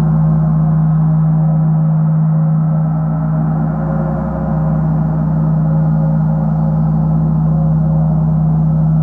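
Large framed gong played continuously with a pair of mallets: a sustained ringing wash with a strong steady low hum and many overtones above it. The level dips briefly about four seconds in.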